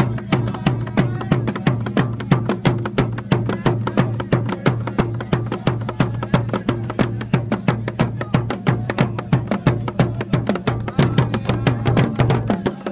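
Drum beaten in a fast, steady rhythm of about five or six strikes a second, over a low steady drone, as accompaniment to dancing.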